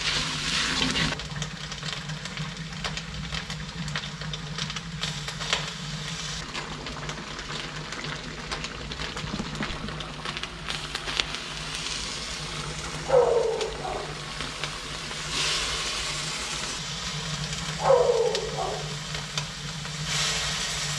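Chopped vegetables and egg sizzling in a large steel wok as a metal spatula scrapes and stirs them, over a steady low hum. An animal cries out, each call falling in pitch, about 13 and 18 seconds in and again at the very end.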